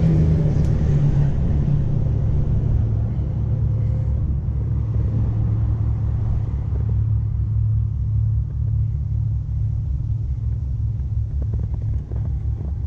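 Boat's outboard motor running at low speed, a steady low drone that settles slightly lower in pitch in the first second.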